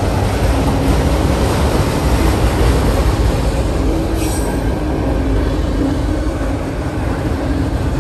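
Freight train of autorack cars rolling steadily past at a grade crossing: a continuous rumble of steel wheels on the rails, with a brief high wheel squeal about four seconds in.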